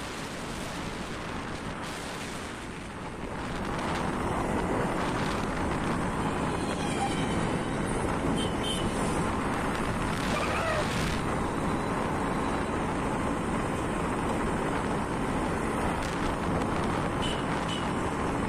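Wind rushing over the microphone with the running of a motorcycle engine and road noise while riding, growing louder about four seconds in.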